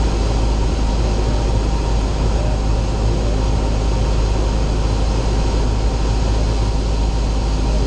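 Single-engine light aircraft's piston engine and propeller running steadily, heard from inside the cockpit as a continuous drone.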